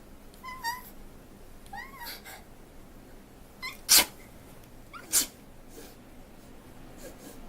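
A woman gives a couple of short high squeaks, then sneezes twice: a loud sneeze about four seconds in and a second, slightly softer one just over a second later.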